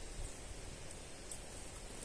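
Faint, steady outdoor background noise: a low rumble and a soft hiss, with no clear bird call.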